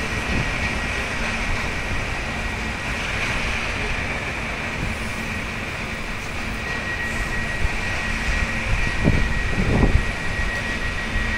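Railway station rumble of a train out of sight, with a steady high-pitched whine setting in about halfway through and a couple of knocks near the end.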